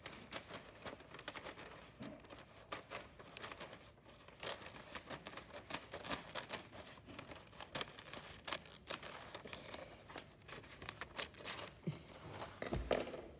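Wrapping paper rustling and crinkling as it is handled: a steady, irregular run of sharp paper crackles.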